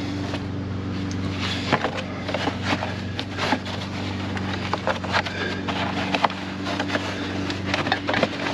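Hands fitting a covering onto a battery cable under a Jeep's hood: scattered light clicks, taps and rustles over a steady low hum.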